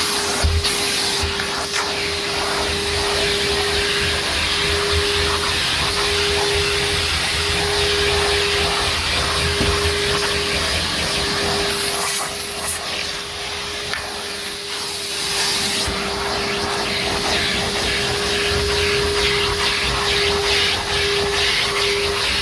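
Numatic NTD570 vacuum cleaner running steadily, a motor hum over the hiss of air rushing through the hose. The suction sound shifts briefly around the middle as the nozzle is moved over the stairs.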